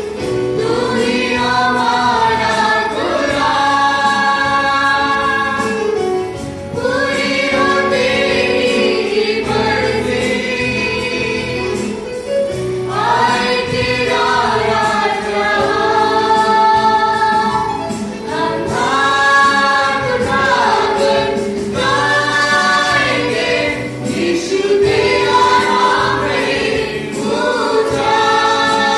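A small group of young male and female voices singing a Christian praise song together into microphones, with electronic keyboard accompaniment. The song goes in phrases of a few seconds with long held notes and short breaths between them.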